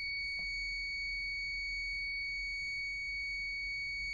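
Continuity buzzer of an NJTY GY9905T multimeter giving one steady, unbroken high-pitched beep in continuity mode, at about 70 dB.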